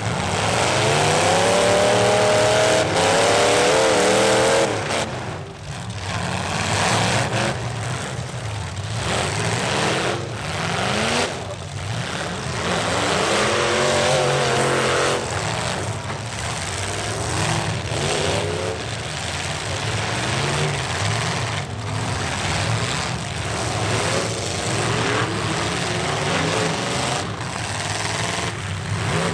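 Several demolition-derby pickup truck engines revving hard and wavering in pitch as the trucks push against each other, loudest in the first five seconds.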